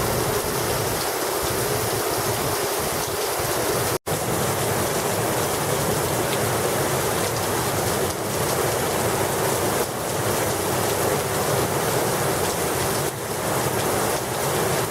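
Heavy thunderstorm rain falling, a steady loud hiss. It cuts out for an instant about four seconds in.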